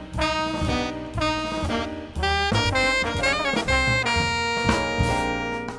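Small jazz group playing: saxophones, trumpet and trombone voiced together in a horn line, over a walking bass and drums.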